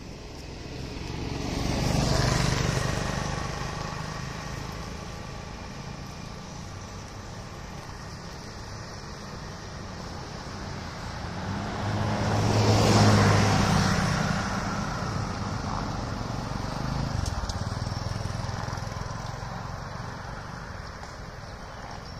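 Motor vehicles driving past on the road one after another. Each rises and fades over a few seconds: one about two seconds in, a louder one around halfway through, and a fainter one shortly after.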